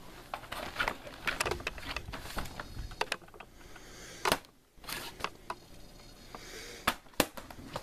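Irregular plastic clicks and taps from a Toshiba laptop being handled and its lid opened, dense at first and sparser after about four seconds.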